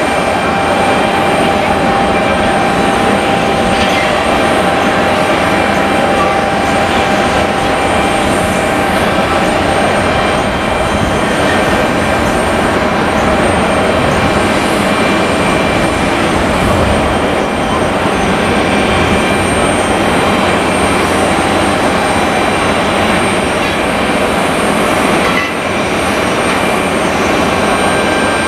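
Jet airliner engines running, loud and steady: a dense rushing noise with a few thin steady whines on top.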